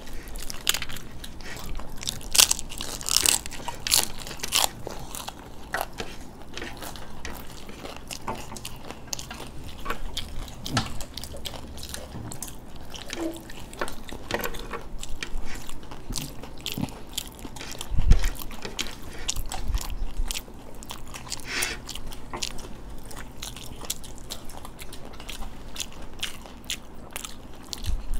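Close-up chewing and crunching of crisp raj kachori, the fried puri shells cracking in repeated crackly bites. A single low thump about eighteen seconds in.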